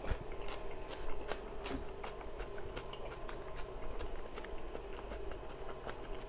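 Close-miked chewing of a mouthful of bread: a steady run of small wet mouth clicks and smacks, over a low steady hum.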